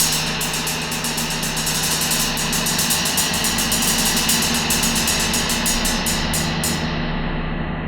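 Gong played with a rapid mallet roll, building a dense, steady shimmering wash over a low hum. The roll stops about seven seconds in and the gong rings on.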